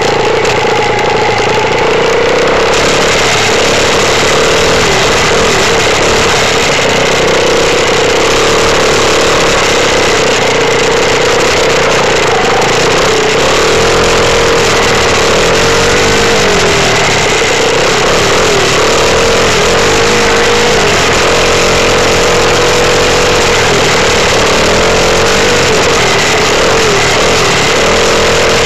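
Dirt bike engine running loud and close, its revs rising and falling over and over as the bike is ridden along a trail.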